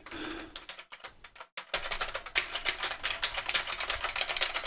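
Typing on a computer keyboard: a fast, uneven run of key clicks, with a short pause about a second and a half in.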